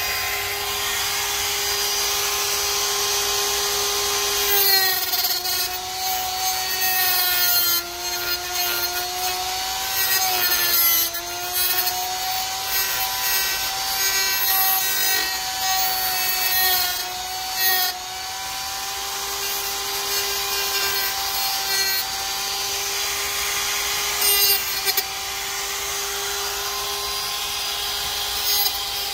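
Die grinder with a cutoff wheel running at a steady high whine while grinding down metal threaded inserts that stick up from a wooden shelf. Its pitch sags under load, with rough grinding noise, about five seconds in, again from about eight to twelve seconds, and once more near the end.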